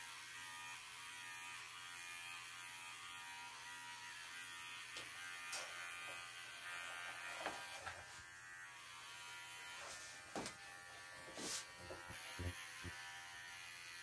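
Cordless pet clipper with a #40 blade running steadily as it cuts through a standard poodle's coat against the growth of the hair, with a few light knocks from the clipper and handling.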